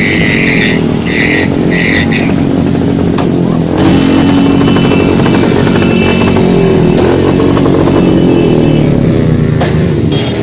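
Yamaha R15 V3's single-cylinder engine running on the road, its pitch rising and falling with the throttle, with a few short high beeps in the first two seconds.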